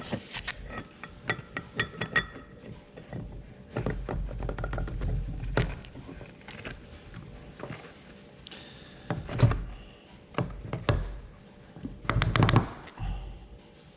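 Metal engine parts clinking and knocking as a piston and connecting rod are handled and assembled, with heavier thuds about nine and twelve seconds in.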